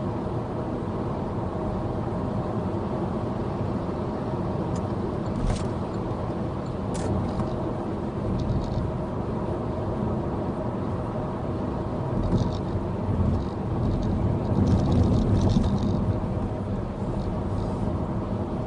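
Car driving: a steady hum of engine and road noise, with a few faint clicks and a somewhat louder stretch about three-quarters of the way through.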